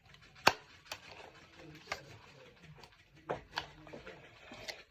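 Scattered plastic clicks and knocks from a toy gel blaster's parts being fitted together by hand, about six in all, the sharpest about half a second in.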